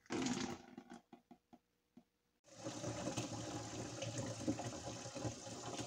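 Water from a kitchen faucet running steadily into a one-gallon plastic jug, filling it, from about two and a half seconds in. Before that, a short rustle and a few light clicks.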